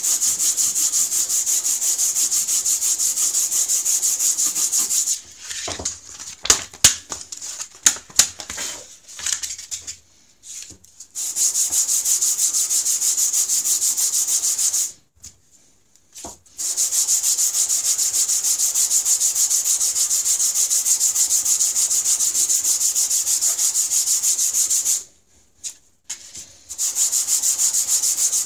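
A waterstone rubbed rapidly back and forth on a sheet of sandpaper to flatten its face, which has worn hollow from sharpening: a steady, hissy scraping. It runs in three long stretches, broken about a fifth of the way in by a few seconds of scattered knocks and scrapes, and by two short pauses later on.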